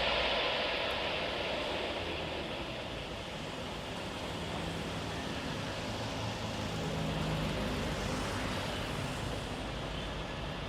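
Jet airliner engine noise, a steady rushing sound that is loudest at the start and eases slowly off.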